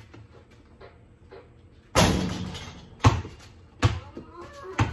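Basketball being bounced, a few single dribbles, with one louder bang about two seconds in that rings on for about a second.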